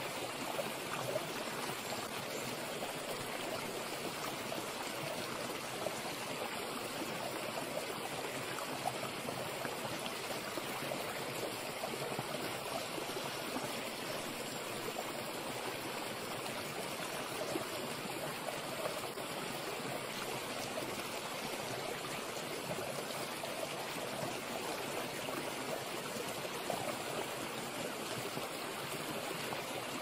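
Light rain falling steadily into a puddle, a constant hiss of many small drops hitting water.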